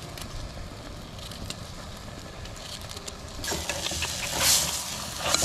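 Food frying in a pot over a wood fire: low fire crackle at first, then a loud sizzle starts about three and a half seconds in.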